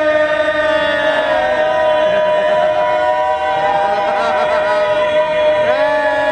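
Live singing: voices hold one long, steady note while other sung lines slide up and down around it.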